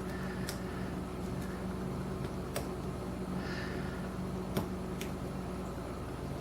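Faint scattered clicks of a lock pick working the pins of a Lockwood 301/63 padlock, over a steady low hum.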